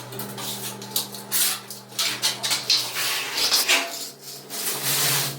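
Irregular clattering and scraping of hard objects, over a low steady hum.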